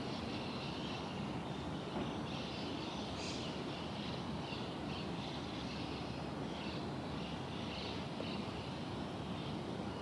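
Wild birds chirping and calling among the trees, many short faint calls scattered throughout, with one brighter, higher call about three seconds in, over a steady low background rumble.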